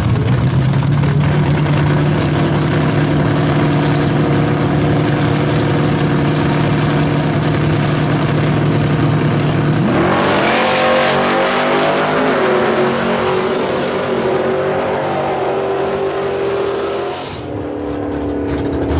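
Two drag cars, a Fox-body Ford Mustang and a Chevy Nova, with their engines held at steady revs at the start line. About halfway through they launch: the engines rev up sharply and climb through the gears as the cars pull away down the strip, fading with distance. Near the end a different engine is heard running steadily.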